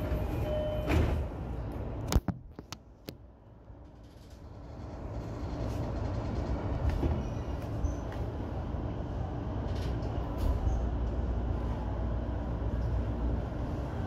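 E233-1000 series electric train running noise, a steady low rumble. Sharp clicks come about two seconds in, then a short quieter stretch before the noise builds back up.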